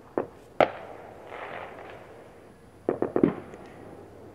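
Neighbourhood fireworks going off with sharp bangs. Two come in the first second, the second one the loudest, then a quick cluster of four or five bangs about three seconds in.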